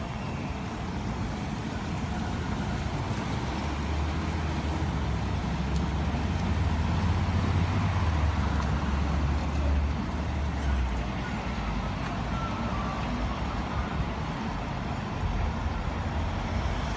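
Automatic gantry car wash running over a van, a steady mechanical wash noise with a low hum that grows louder through the middle.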